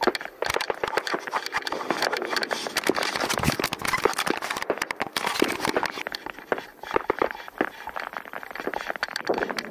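Airsoft gunfire: a dense, irregular crackle of sharp pops and clicks.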